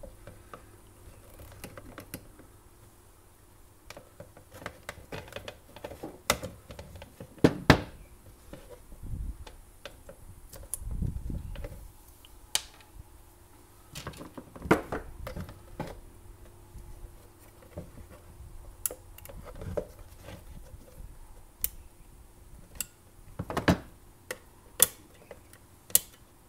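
Irregular clicks, taps and knocks of needle-nose pliers and a screwdriver working on the wiring inside a plastic coffee-maker base, with a few dull bumps near the middle.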